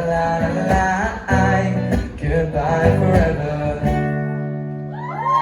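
Live acoustic guitar and singing closing a song: the voices stop a little under four seconds in and the final strummed chord rings out and fades. Near the end the audience starts cheering and screaming.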